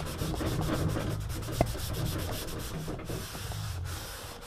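A cloth rubbing back and forth over the glossy deck of a kneeboard, wiping off a water-based ink alignment mark, with a brief click about one and a half seconds in.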